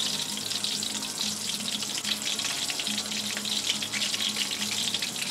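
Chicken piece deep-frying in hot oil: a steady, crackling sizzle of bubbling oil with constant fine pops.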